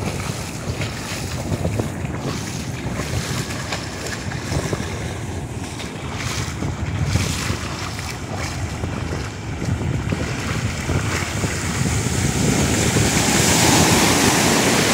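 Ocean surf washing in and breaking, with wind buffeting the microphone; a wave breaks close by near the end and the rush of water grows louder.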